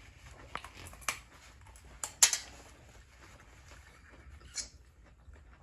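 Eating sounds: scattered crunching and clicking of food being bitten and handled, with one sharp crackle about two seconds in.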